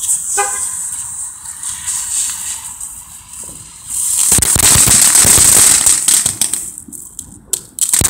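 Aircraft carrier novelty ground firework going off: a quieter hiss at first, then a loud spray of sparks from about four seconds in, breaking into sharp crackling pops near the end.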